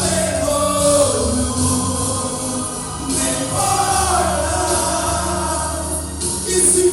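A men's group singing a gospel song together, with instrumental accompaniment.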